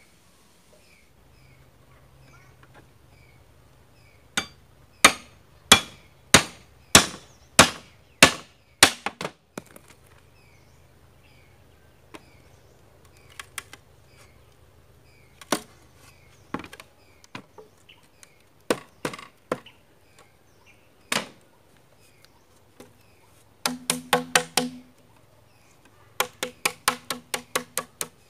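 Large knife chopping into a green bamboo tube. First comes a run of about ten strong, sharp chops, roughly one and a half a second, then scattered single strikes. Near the end there are two quick runs of lighter knocks with a hollow, woody ring from the tube.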